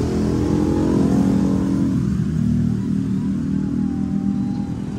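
A motor vehicle's engine running, a low steady hum that slowly gets quieter.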